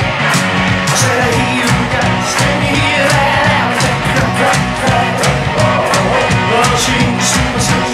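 Glam rock band playing: electric guitar, bass guitar and drums in a steady beat, with drum hits about twice a second over a repeating bass line.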